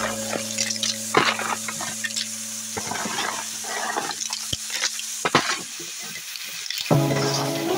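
Snails in their shells being stirred in a metal pan of frying masala: irregular clicks and clatters of shell on shell and shell on pan over a light sizzle. Music comes back near the end.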